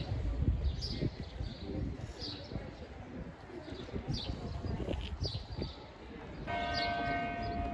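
Church bell ringing out about six and a half seconds in, a sustained tone with several higher overtones. Before it, a bird chirps in short high calls about twice a second, over a low rumble of street ambience.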